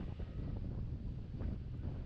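Wind blowing across the microphone in uneven gusts, a low rumbling noise.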